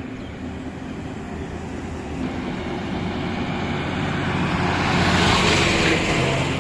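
Heavy goods truck passing close by: its diesel engine running and tyre noise growing louder, peaking about five seconds in, then starting to fade.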